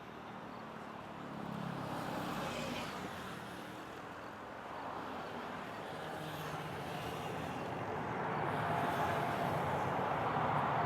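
Boeing 787 Dreamliner's jet engines on final approach and landing, a steady rush and rumble growing louder toward the end.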